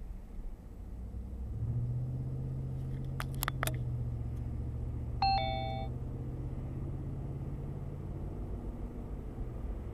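Car running at city speed, its engine hum heard from inside the cabin and strengthening about a second and a half in as it picks up speed. A few sharp clicks come at about three and a half seconds. Just past five seconds an electronic two-note ding-dong chime sounds, the higher note first and then a lower one; it is the loudest thing heard.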